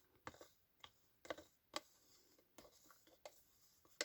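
Faint, irregular clicks and scrapes of a stick stirring a thick, lumpy paste of wet paper and toothpaste.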